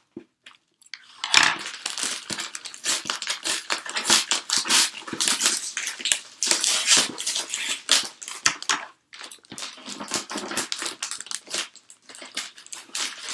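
Packing tape being picked at with fingernails and peeled off a cardboard box: irregular crackling, scratching and ripping that stops briefly about nine seconds in.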